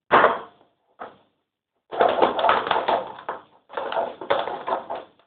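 Fluffy shaving-foam slime being stirred and squished in a clear container as the borax activator firms it up: a short squish at the start, then two runs of sticky, irregular squelching and crackling.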